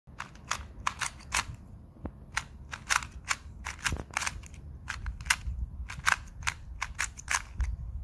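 Plastic 2x2 speed cube being turned quickly in the hands: a fast, irregular run of sharp clicks as its layers snap round. The clicks stop near the end.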